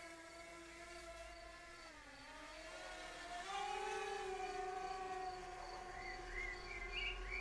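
DJI Mini 2 quadcopter's propellers whining as it climbs away after take-off, the pitch dipping about two seconds in, then rising and holding steady. A few short high chirps near the end.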